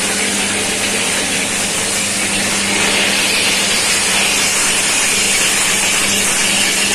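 Rice roasting machine running: a steady rushing rattle of grains tumbling in the drum under the rotating stirrer paddle, over a steady motor hum.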